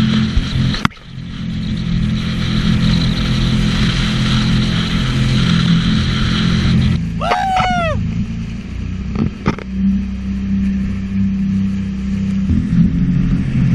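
Sea-Doo jet ski engine running under way, its steady note mixed with a rush of wind and water.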